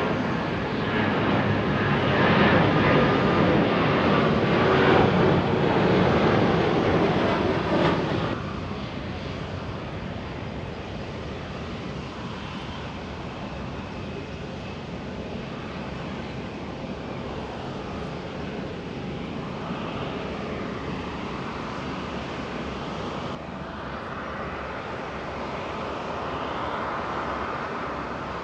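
Jet engine noise from an Airbus A350-900's Rolls-Royce Trent XWB turbofans as the airliner taxis at low power. It is loudest for about the first eight seconds, then drops suddenly to a quieter steady rumble.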